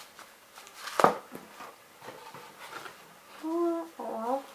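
A sharp click or snap about a second in, with faint rustling of doll packaging around it. A girl then hums a few held notes near the end.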